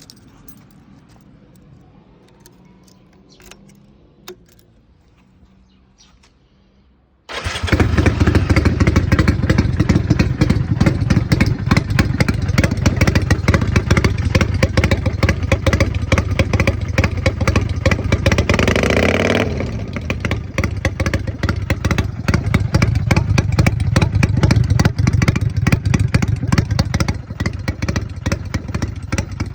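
Kawasaki Vulcan 400 Classic V-twin motorcycle engine: quiet for about seven seconds, then its exhaust note comes in abruptly and runs loudly with a deep, rapid pulse. The note shifts briefly about nineteen seconds in, then settles slightly quieter.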